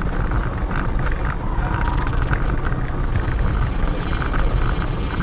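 Steady low rumble of a moving car's engine and road noise, picked up inside the cabin by a dashcam, with scattered short clicks and rattles.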